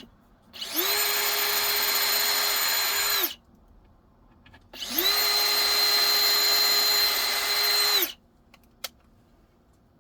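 Power drill boring pilot holes into bamboo, twice. Each run is a steady whine of about three seconds that winds up at the start and spins down at the end, with a short pause between. A single small click follows near the end.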